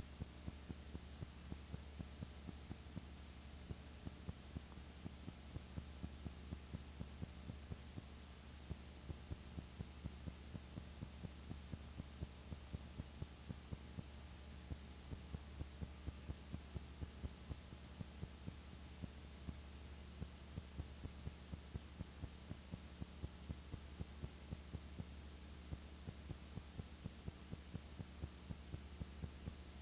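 Faint steady low electrical hum with soft regular ticks about three a second: background noise of a silent home-movie transfer, with no sound from the scene itself.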